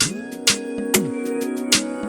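Background music with a steady beat, drum hits about twice a second over sustained pitched tones and sliding bass notes.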